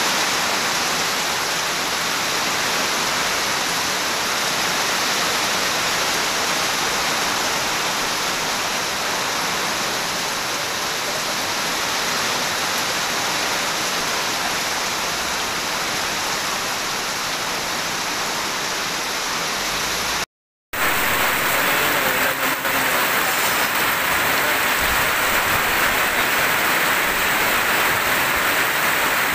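Heavy tropical rain falling in a steady, even hiss. About two-thirds of the way through it cuts out for a moment and comes back as rain drumming on a corrugated roof, with water pouring off the roof's edge.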